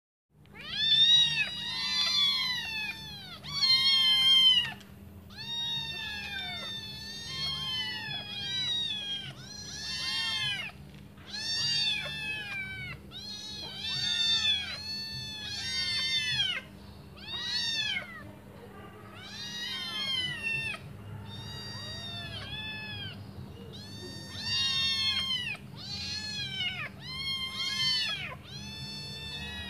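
Five hungry kittens meowing over one another without pause, a string of high cries that rise and fall, loudest in the first few seconds. They are calling for their mother to come back and feed them. A steady low hum lies underneath.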